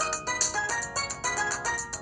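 Audiovox CDM-8900AU cell phone playing a polyphonic ringtone: a quick, bright synthesized melody of several notes at once over drum-like hits, about five or six notes a second.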